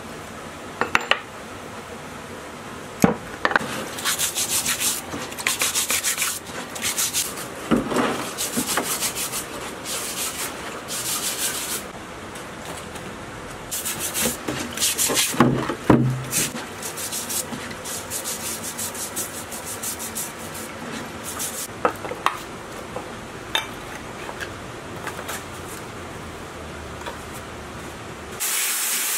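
Hand wire brush scrubbing wet, grimy diesel engine parts in runs of quick scratchy strokes, after a couple of sharp metal clicks about one and three seconds in. A steady loud hiss starts near the end.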